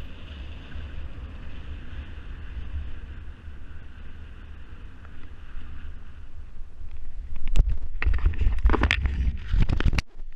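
Wind rushing over the microphone of a paraglider's body-mounted camera on the final glide, a steady low rumble. From about seven and a half seconds in, a run of loud knocks and rustles as the pilot touches down and handles the harness in the grass.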